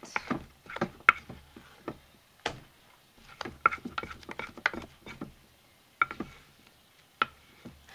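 A utensil knocking and scraping against a stoneware crock pot insert while scooping out thick, stiffening hot-process lard soap: irregular sharp taps and clicks, some with a short ring.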